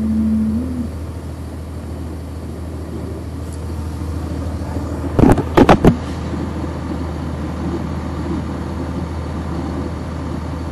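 Cummins ISC diesel engine of a 1999 NovaBus RTS transit bus running, heard from inside the bus as a steady low hum. A short steady tone sounds in the first second, and about five seconds in four loud knocks come in quick succession.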